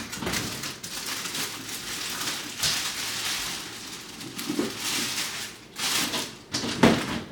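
Rustling and scuffing handling noise with several knocks, the loudest a little before the end.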